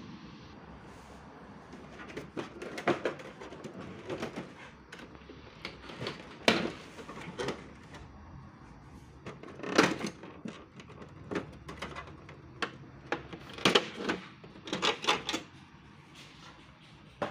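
Irregular hard clicks and knocks of plastic parts as a Brother MFC-J3530DW inkjet printer's casing and opened scanner unit are handled.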